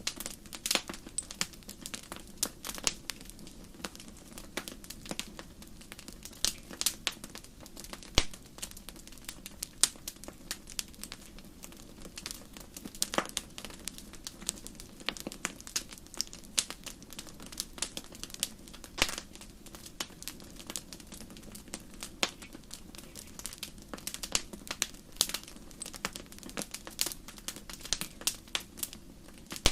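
Wood campfire crackling: irregular sharp pops and snaps, several a second, over a steady low rush of the burning fire.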